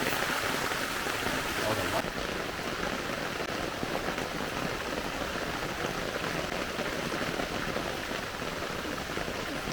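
Heavy rain falling in a steady hiss. About two seconds in, the sound turns abruptly duller, losing some of its high hiss.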